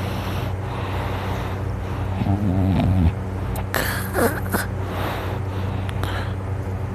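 Soft vocal sounds over a steady low hum: a wavering, drawn-out sound about two seconds in, then a breathy sound with a falling pitch about a second later.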